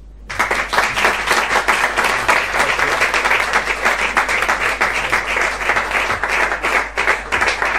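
Audience applauding, the clapping starting suddenly a moment in and going on steadily.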